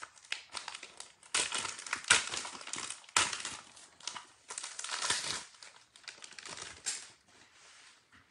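Packaging crinkling and crumpling in irregular bursts, loudest about two and three seconds in, dying away near the end.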